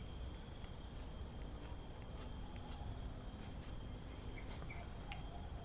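Steady high-pitched insect chorus, cricket-like, with a few short high chirps and some faint light ticks.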